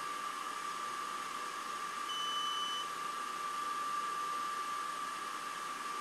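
A single short electronic beep about two seconds in from the Atomstack laser engraver's control electronics, given as the machine is switched on. Under it runs a steady hiss with a constant high whine.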